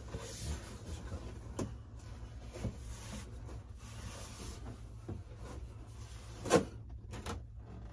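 Large cardboard box being handled and opened: scattered scrapes and knocks of cardboard, the loudest a sharp knock about six and a half seconds in, with another shortly after.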